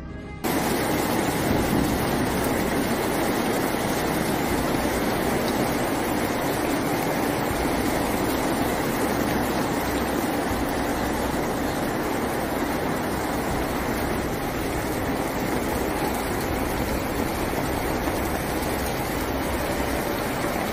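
Heavy rain pouring down in a steady, loud rush that takes over when music cuts off about half a second in.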